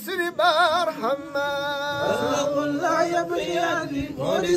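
Men's voices chanting an Arabic Mawlid poem unaccompanied: a wavering, drawn-out sung line at first, with more voices overlapping from about two seconds in.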